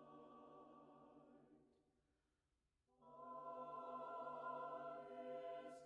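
Faint background music: a choir holding sustained chords. The first chord fades out about one and a half seconds in, and after a second of silence a new chord comes in about three seconds in.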